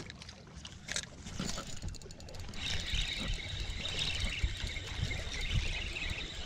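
Fishing reel cranked steadily, a continuous whir starting about two and a half seconds in, as a hooked fish is reeled toward the boat.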